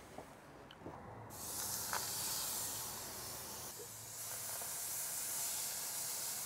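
Pollock fillets with herb paste sizzling on a hot salt block on the grill: a steady high hiss that starts suddenly just over a second in.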